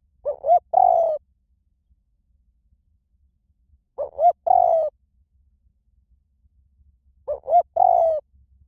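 Spotted dove cooing: three calls about three and a half seconds apart, each two short coos followed by a longer drawn-out one.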